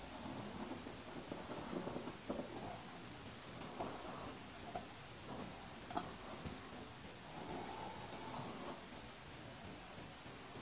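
Faint scratching of a drawing compass's pencil lead on paper as arcs are swung, with small clicks from the compass. The longest scratching strokes come at the start and about seven and a half seconds in, lasting roughly a second each.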